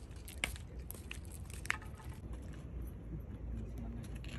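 Steady low outdoor rumble, with two sharp clicks, one about half a second in and one just under two seconds in.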